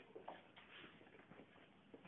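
Near silence: room tone, with a few faint clicks in the first second.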